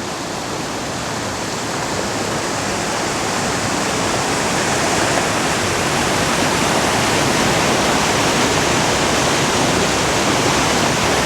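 Waterfalls and rushing brook water, a steady, full rush that grows gradually louder.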